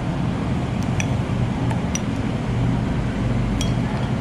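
Steady low room hum, with a few faint light clicks of a spoon on a dish as a dessert is cut.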